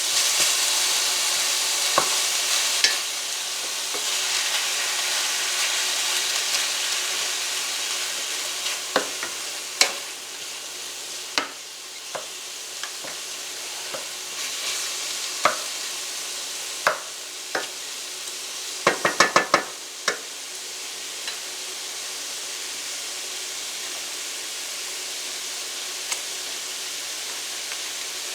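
Ground beef and onions frying in a skillet, sizzling steadily as a utensil stirs them, with scattered clicks and scrapes against the pan and a quick run of about five taps about two-thirds of the way through.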